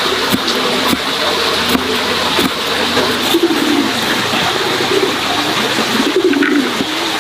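A dove cooing a few times, low and soft, in the second half, over a steady background hiss, with a few light knocks from a knife and hand on a wooden chopping block.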